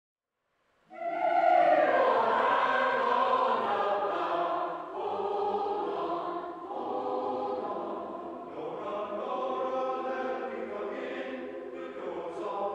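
Mixed choir singing a spiritual in a church sanctuary, coming in at full voice about a second in after silence.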